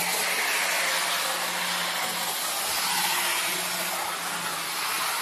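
Heljan Class 86 model electric locomotive running at full speed along the track: a steady whirring hiss from its motor, gears and wheels on the rails.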